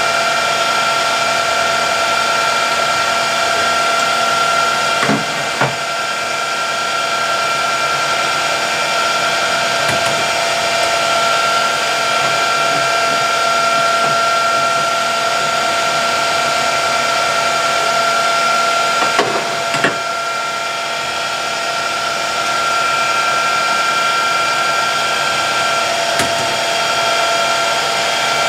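Metalworking lathe running with a steady whine while machining a metal exhaust tube, with a few brief sharp clicks: one about five seconds in, a pair around twenty seconds, and one near the end.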